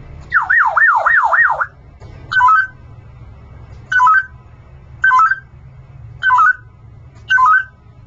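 African grey parrot whistling an imitation of an electronic alarm: a warbling siren sweeping up and down four times, then five short, identical chirps about a second apart.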